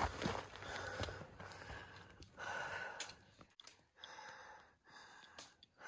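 A hiker breathing hard on a steep climb, with several heavy breaths in a row. A few footsteps or knocks come in the first second.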